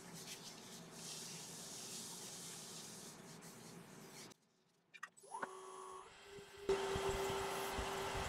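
A cloth rubbing wax onto a turned wooden lid, a faint hiss. After a short break, the wood lathe runs with a steady hum while the cloth polishes the spinning wood, louder over the last second or two.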